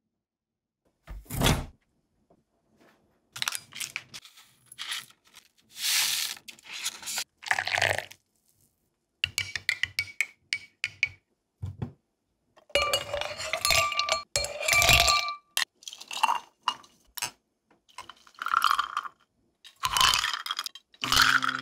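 A metal spoon clinking and scraping against glass while stirring coffee, and ice cubes clinking in a glass, in separate short bursts with quiet gaps between them.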